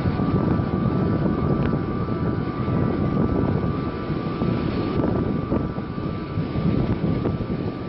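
Car-carrying shuttle train running, a steady rumble of wheels and wagon heard from inside a car loaded on the wagon.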